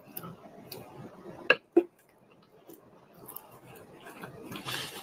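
Close-miked eating sounds: wet chewing and mouth noises over a mouthful of macaroni and cheese, with a metal spoon clicking against a ceramic plate twice about one and a half seconds in.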